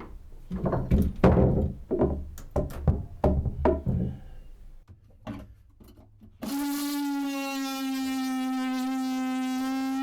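Repeated hard knocks, about eight blows in the first four seconds, as a battery box is struck and broken apart. About six and a half seconds in, a steady sustained synthesizer tone takes over.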